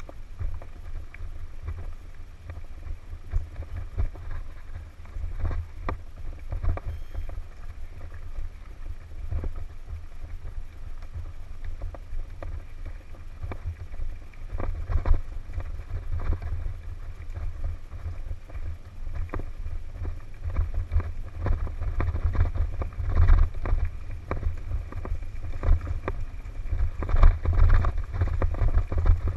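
Wind buffeting the microphone of a helmet camera on a mountain bike riding fast downhill, a steady low rumble. Over it come frequent clicks and rattles from the tyres and bike on the rough dirt and gravel trail, louder in the last several seconds.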